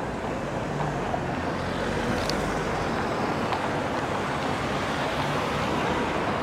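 City street traffic noise: a steady hum of cars on the road, with a car driving past.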